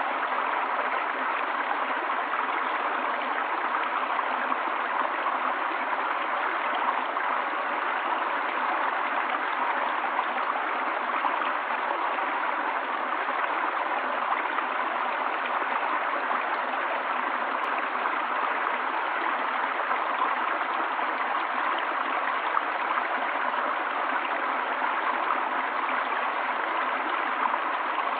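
Forest river flowing steadily: an even, unbroken rush of water.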